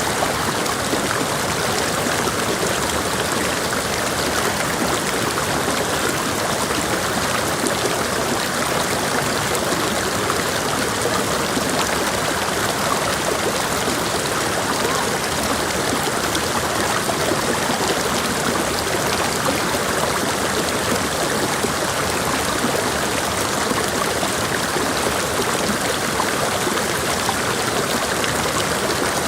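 A mountain creek's water flowing over rocks in a steady, even rush.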